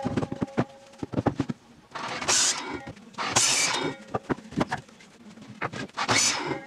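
Pallet-wood boards knocking and clattering against a miter saw's table and fence, with three short cuts by the miter saw through the wood, each a brief rushing burst.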